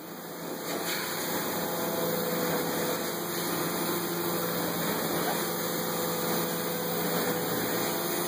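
VW truck-mount carpet-cleaning machine running steadily, its vacuum drawing air and water through a cleaning wand on the carpet; the sound builds over the first second or so, then holds steady.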